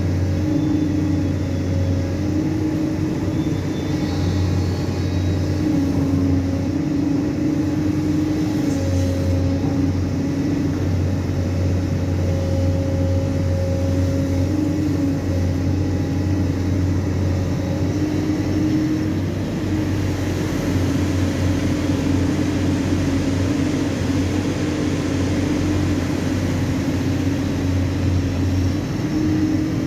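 JCB crawler excavator's diesel engine running steadily under hydraulic load, its drone shifting slightly up and down in pitch every few seconds as the boom and bucket work.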